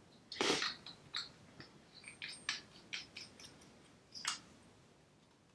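Faint, scattered small clicks and rustles of hands handling a Speedy Stitcher sewing awl and its metal needle, the loudest about half a second in and another near the end.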